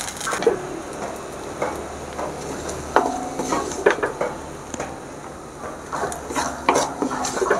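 Metal spatula scraping and knocking against a frying pan and a terracotta clay dish as okra-and-egg stir fry is scooped out, in irregular clinks and scrapes, some ringing briefly. A faint sizzle runs underneath.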